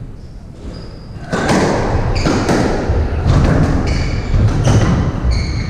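Squash rally: the ball struck by rackets and hitting the court walls in a quick run of sharp thuds, with court shoes squeaking on the wooden floor. The play starts about a second and a half in, after a quieter moment.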